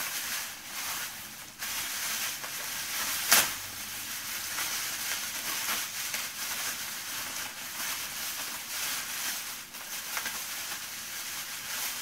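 Plastic wrapping crinkling and rustling as hands unwrap resin doll parts, with one sharp snap about three and a half seconds in.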